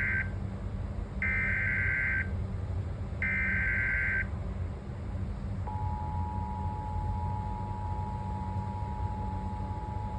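Emergency Alert System tones for a severe thunderstorm warning: the end of one SAME digital header burst, then two more data bursts about a second long each, a second apart. From about six seconds in comes the steady two-tone EAS attention signal.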